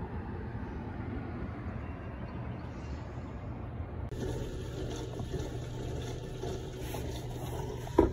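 Road traffic: a steady low rumble of passing cars, with a short sharp knock right at the end.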